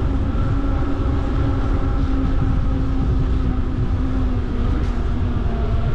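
Steady low rumble of wind on the microphone and tyres on asphalt from a moving bicycle, with a steady humming tone that drops a little in pitch about four and a half seconds in.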